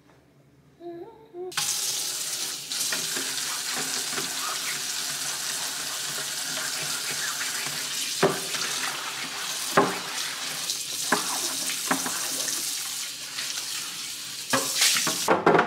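Kitchen tap running into a sink, with water splashing over a plastic drawer organizer as it is rinsed and scrubbed by hand. The water comes on about a second and a half in and stops just before the end. A few sharp knocks sound along the way.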